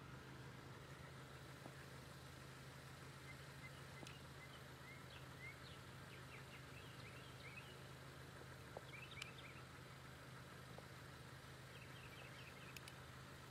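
Faint outdoor ambience: birds chirping in runs of short, high, rising chirps through the middle and again near the end, over a low steady hum.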